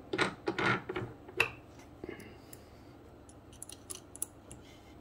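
Small metal tools being handled by hand, clicking and scraping against each other and the metal around them. A cluster of sharp clicks comes in the first second and a half, then a few faint ticks later on.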